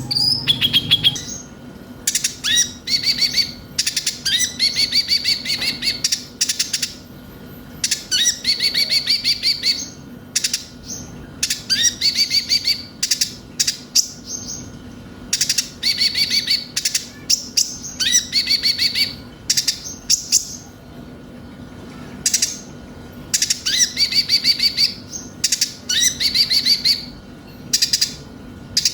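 A konin (kolibri ninja) sunbird singing in fast, chattering phrases of high notes and ticks, each phrase a second or two long and repeated with short pauses. This is a lure recording played to make caged birds sing. A steady low hum runs underneath.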